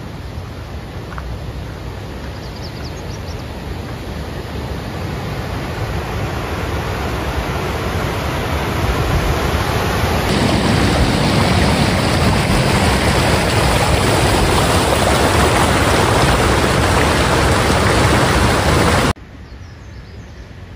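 Waterfall rushing, a steady noise of falling water that grows louder over the first half, then cuts off abruptly near the end.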